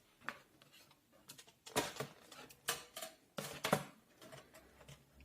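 Watercolour half-pan palettes being handled: a series of separate sharp clicks and knocks, spread irregularly, with the loudest in the middle of the stretch.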